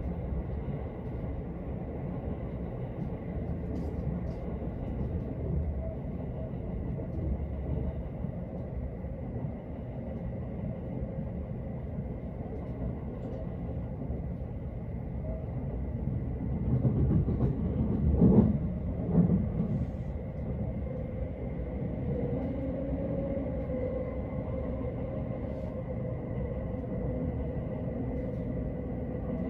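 Running noise inside a carriage of the Haruka limited express train: a steady low rumble of wheels on track, swelling louder for a couple of seconds a little past the middle. A faint steady tone joins it over the last third.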